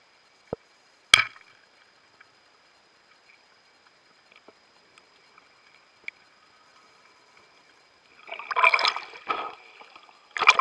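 Underwater sound on a spearfishing dive: a couple of sharp clicks in the first second or so, then loud bursts of bubbling and gurgling water near the end.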